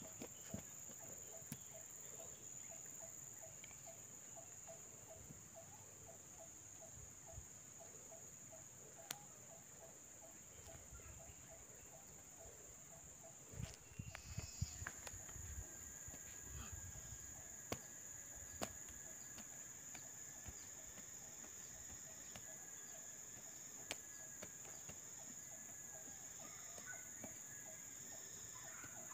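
Insects droning steadily at a high pitch, with a lower call pulsing a few times a second through the first half and a thin steady tone joining about halfway. A few sharp knocks come around the middle.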